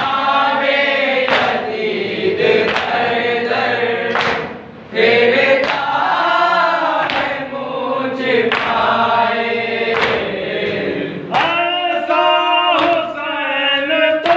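Group of men and boys chanting a nauha, a Shia mourning lament, in unison, with a slap of hands beaten on chests (matam) about every one and a half seconds keeping the beat.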